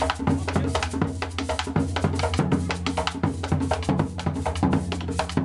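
Background music with a quick, even drum and percussion beat over a steady low bass line.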